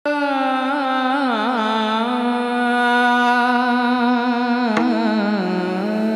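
A male devotional singer of a Varkari bhajan holding a long high note, with wavering ornaments on it, over a steady held drone. There is a brief click about three-quarters of the way through.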